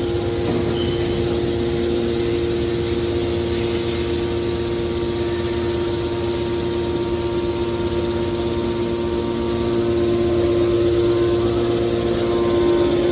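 Hydraulic metal baler compactor running: a steady machine hum with one strong held tone, getting a little louder about ten seconds in.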